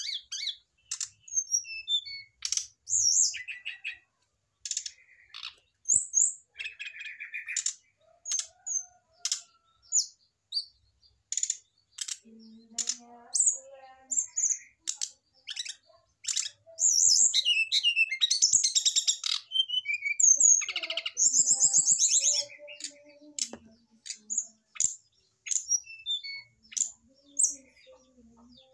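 Brown-chested jungle flycatcher calling in a string of short, sharp, high-pitched chirps and clicks, breaking into two longer, faster twittering phrases past the middle.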